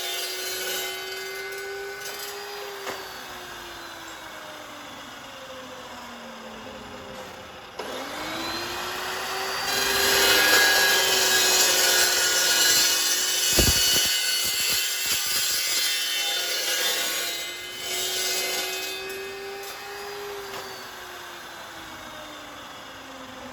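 Carbide-tipped circular saw blade cutting steel. The saw's motor tone slides down and back up in pitch. The cutting is loudest from about ten to seventeen seconds in, with a single knock partway through.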